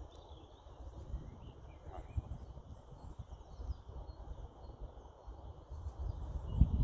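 Wind rumbling on the microphone, gusting much louder about six and a half seconds in, with faint birdsong in the background.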